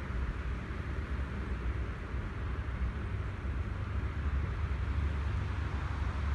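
Steady hum of road traffic in the distance, with an uneven low rumble underneath.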